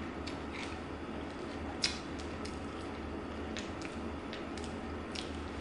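Someone eating milk-soaked cereal: scattered faint crunches of chewing and clicks of a metal spoon in a ceramic bowl, with one sharper click about two seconds in, over a steady low hum.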